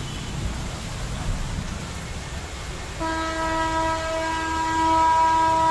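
A steady hiss of heavy rain and water, then about three seconds in a vehicle horn starts one long, steady blast that becomes the loudest sound.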